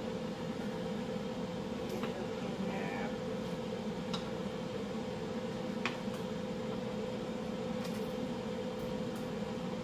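Steady mechanical hum in a kitchen with a constant low tone, broken by a few light clicks and taps about two, four and six seconds in as raw chicken pieces are handled and laid into a glass baking dish.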